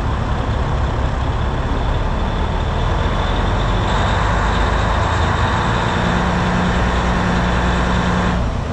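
Semi-truck diesel engine and road noise heard from inside the cab while driving: a steady low rumble that grows louder about four seconds in, joined by a steady hum, then drops off abruptly near the end.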